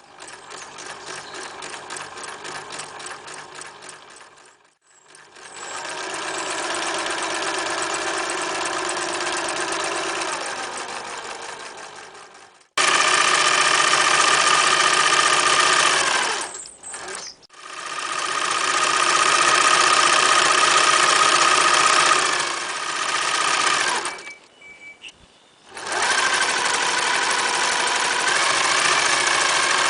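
Singer Futura 1000 electric sewing machine running in several spells of stitching, speeding up and slowing down, with brief stops about 5, 17 and 25 seconds in.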